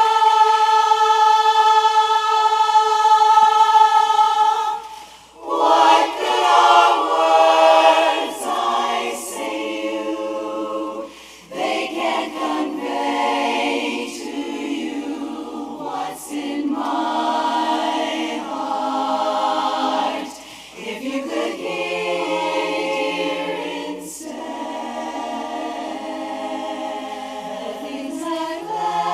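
Women's barbershop chorus singing a cappella in close harmony. It opens on a long held chord for about five seconds, then moves through sung phrases with short breaks between them.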